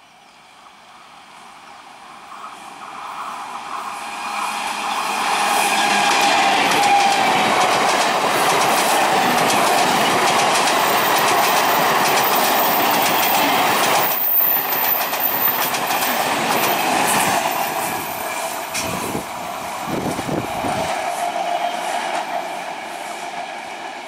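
EMU local train running past close by, wheels clattering over the rail joints. It builds over the first few seconds as the train approaches, stays loud through the middle, then eases off near the end.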